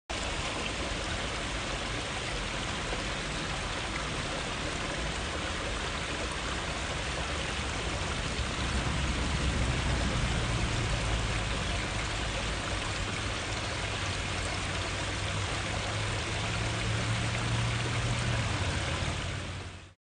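Water of a pondless waterfall spilling over stacked stone ledges: a steady splashing rush, a little fuller from about halfway, fading out at the very end.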